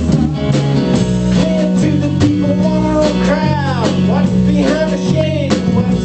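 Music: an instrumental break in a song, a lead line sliding through bent, gliding notes over a steady bass line.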